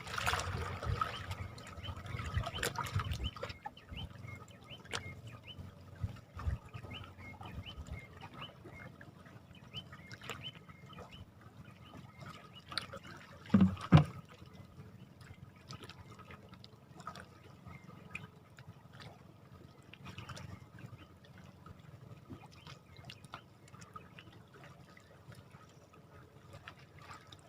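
Shallow water trickling and lapping at the shoreline, busier in the first few seconds, with scattered small ticks and one sharp thump about fourteen seconds in.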